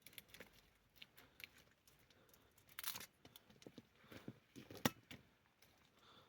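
Faint, scattered clicks and rustles of hands-on outdoor work. A louder scraping rustle comes about three seconds in, and a single sharp click or knock just before five seconds.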